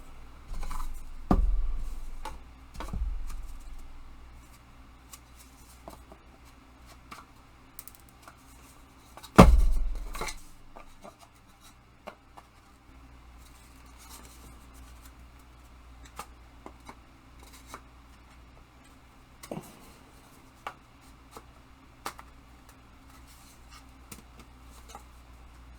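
Parts of a slot-together hobby tool storage rack being handled and fitted together: scattered light clicks and taps, with a few heavier knocks in the first three seconds and one loud knock about nine seconds in.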